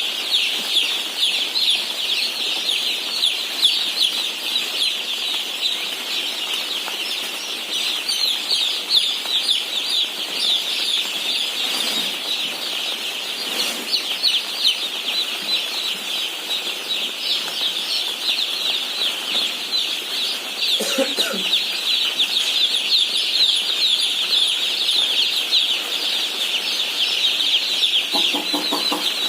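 A flock of broiler chicks peeping continuously: a dense chorus of many overlapping short, high, falling cheeps.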